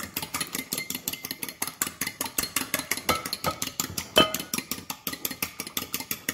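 A metal fork whisking beaten eggs in a glass baking dish: rapid, even clinking of the tines against the glass, about seven or eight strokes a second, with one louder knock about four seconds in.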